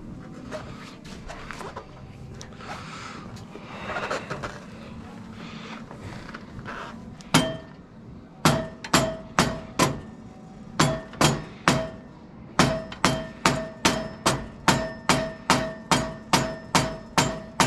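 A hammer striking a metal part of a Brunswick pinsetter. First come several seconds of softer clinks and handling. Then, from about halfway in, a run of about two dozen sharp, ringing blows follows at roughly two to three a second, in short groups.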